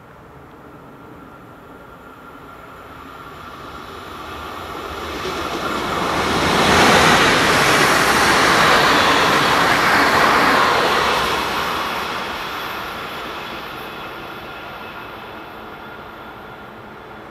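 Electric regional multiple-unit train passing close by at speed. The rush of wheels on rails swells as it approaches, is loudest for about four seconds as the cars go past, then fades away as it recedes.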